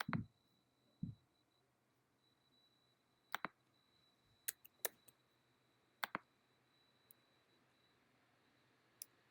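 Computer mouse clicks, a few scattered single and double clicks with a soft thump near the start, against near silence.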